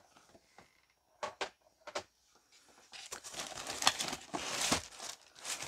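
A few light clicks as a hard plastic graded comic slab is handled and set down, then, about three seconds in, continuous crinkling and rustling as packaging is handled to get at the next slab.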